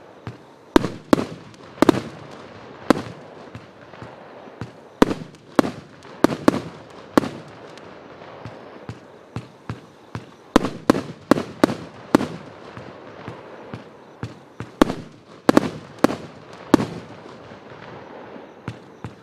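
Pyroworx Flashpoint 30mm 100-shot compound barrage cake firing: an uneven string of sharp bangs, roughly one to three a second, as its tubes launch shots on rising tails that burst overhead.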